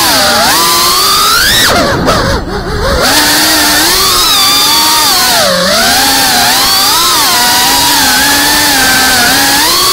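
Brushless motors and propellers of a GEPRC Cinelog 35 FPV drone whining, the pitch rising and falling constantly with the throttle. About two seconds in the throttle is briefly cut, so the whine drops in pitch and level before it climbs again, with another short dip near the middle.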